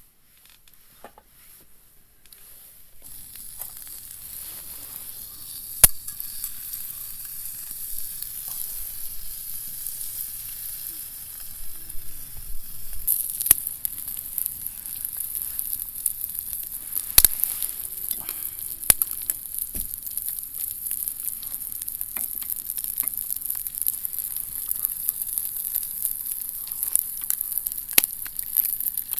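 Food sizzling in a hot pan, starting a few seconds in and getting busier partway through, with occasional sharp pops of spitting fat.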